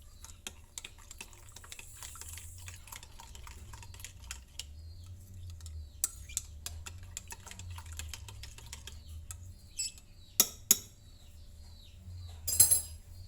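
A spoon stirring yeast into warm milk, clinking lightly and rapidly against the sides of the container, with a few louder knocks near the end.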